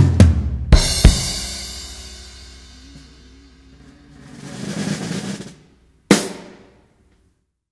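Drum kit in a recorded music track: several heavy kick and snare strikes in the first second with a long cymbal wash decaying after them, a cymbal swell rising and fading around four to five seconds in, and one last hit just after six seconds.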